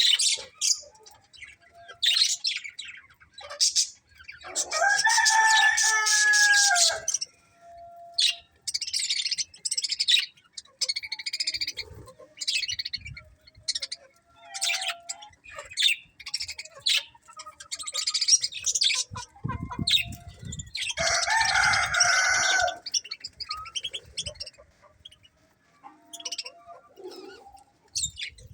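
Budgerigars chirping and chattering in quick bursts throughout, with a rooster crowing twice, a long loud call about five seconds in and another about twenty-one seconds in.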